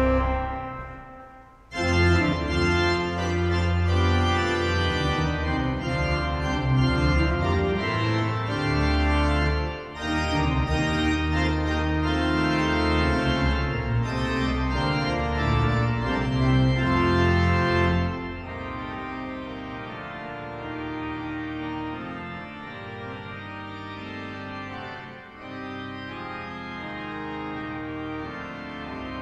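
The 1911 Forster & Andrews pipe organ of Hull City Hall, rebuilt by Compton in 1951, playing loud sustained chords over deep pedal notes. A chord breaks off about a second in and rings away in the hall. The loud playing resumes a moment later and drops to a softer passage about two-thirds of the way through.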